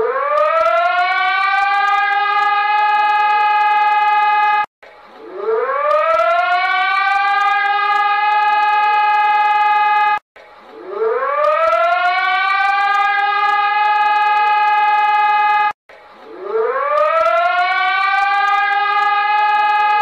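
Warning siren that winds up in pitch over about two seconds and then holds a steady, loud tone. It cuts off abruptly and starts again about every five and a half seconds, three times over.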